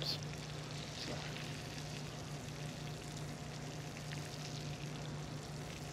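Scallops sizzling softly in butter and oil in a skillet being swirled, off the heat, over a steady low hum.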